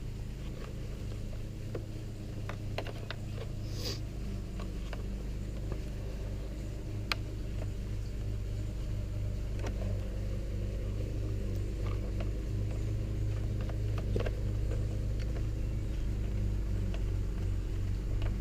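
A steady low mechanical hum runs throughout, with scattered light clicks and taps from wiring and small parts being handled.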